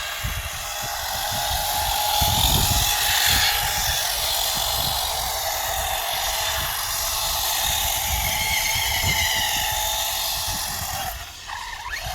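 Traxxas Stampede 4x4 RC truck's electric motor whining as it drifts on ice, the pitch rising and falling with the throttle, over a gusting low rumble. The whine drops away shortly before the end.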